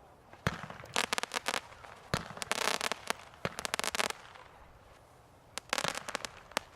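Consumer fireworks going off: single sharp bangs and bursts of rapid crackling reports in three clusters, the longest lasting about a second and a half.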